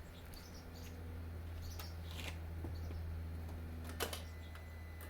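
A few sharp clicks and knocks, handling noise, over a low steady hum, before the engine is started.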